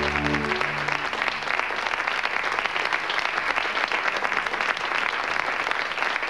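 Studio audience applauding. The last held chord of a theme tune dies away about a second in.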